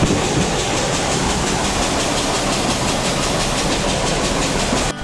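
Engine running steadily with a fast, even pulse, mixed with a steady hiss; it cuts off abruptly near the end.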